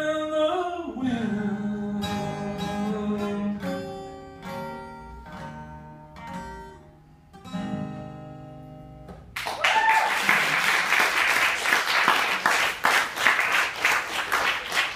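A man's voice holds the last sung note over acoustic guitar, then the guitar plays a closing run of notes that ring out and fade. About nine and a half seconds in, an audience breaks into clapping that goes on to the end.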